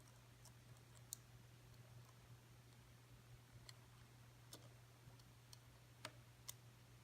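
Faint, scattered clicks and light taps of small metal parts and screws being handled during hand reassembly of a router, about six in all, over a steady low hum.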